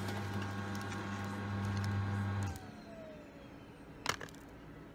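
A small electric fan humming steadily, switched off about two and a half seconds in, its motor whine falling as it spins down. A sharp crackle of sandwich wrapping paper follows about four seconds in.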